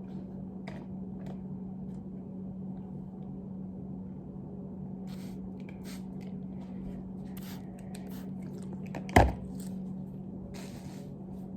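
Handling noises: scattered short rustles and clicks over a steady low hum, with one sharp knock a little after nine seconds, the loudest sound.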